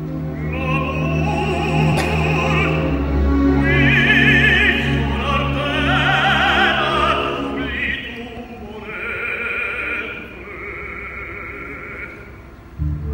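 Operatic tenor singing with a wide vibrato, accompanied by an orchestra. The phrases break off every second or two.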